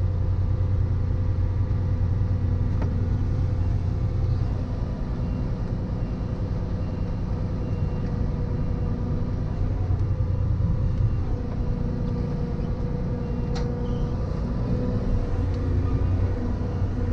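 Heavy farm machine's diesel engine running steadily under a constant low hum and a steady whine, heard from inside the cab. There is a single short click about thirteen seconds in.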